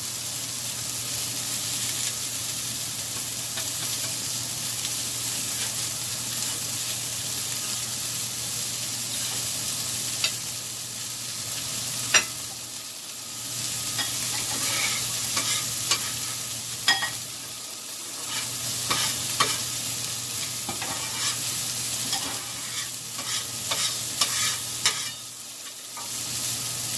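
French toast and sausages sizzling on a flat-top griddle, with a metal spatula scraping and knocking on the griddle plate. The sizzle is steady, and sharp clicks from the spatula come now and then through the second half.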